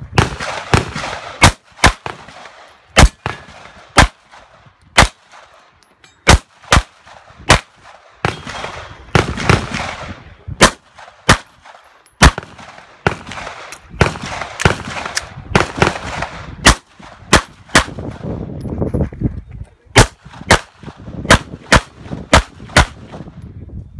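Pistol shots fired in strings, roughly one to two cracks a second with short pauses between strings, each shot echoing briefly.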